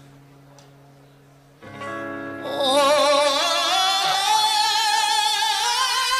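Soft sustained instrumental tones, then about a second and a half in the music swells and a high singing voice comes in with one long note, wavering in a wide vibrato and slowly rising in pitch.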